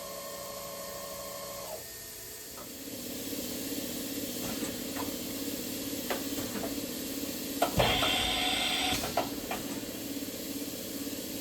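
Chevalier QP1620-L vertical machining center spindle whining at about 2,000 rpm, then winding down and stopping about two seconds in. The machine then keeps running with a low hum, a series of sharp clicks and a loud hiss of air lasting about a second, near the middle.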